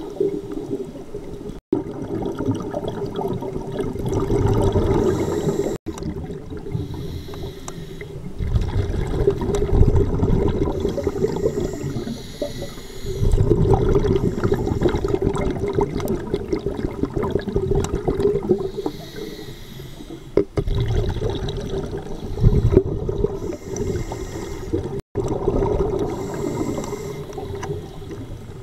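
Scuba diver breathing through a regulator underwater: loud bubbling rumbles of exhaled air come every few seconds, between quieter inhalations, over a steady hum.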